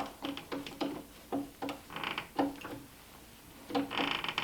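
A screw being backed out with a multi-tool's screwdriver tip. Irregular light clicks and taps come as the tool bites and is turned, with two short grinding scrapes of the threads, about two seconds in and near the end.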